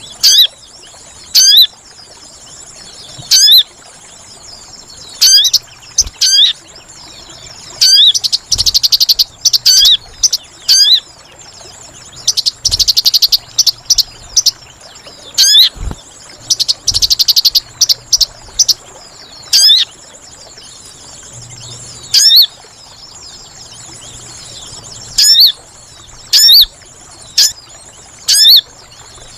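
Sogon lure calls: sharp, loud single call notes repeated every second or two. In the middle come three bursts of fast, chattering trills. A faint, steady high insect drone runs underneath.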